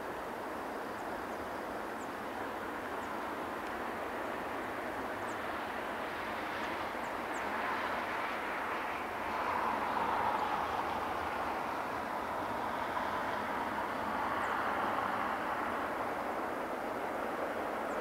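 Freight train rolling by, a steady rushing noise of wheels on rails that swells a little about halfway through.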